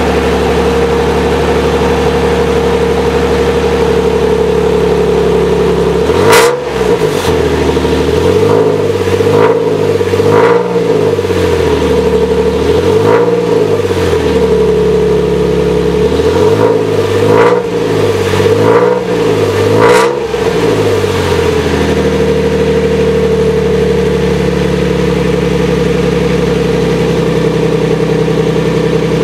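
2005 Toyota Tacoma V6 idling through AFE headers, Y-pipe and a MagnaFlow cat-back exhaust. About six seconds in it is revved in a string of quick throttle blips, each rising and falling in pitch, for about fifteen seconds, then settles back to a steady idle.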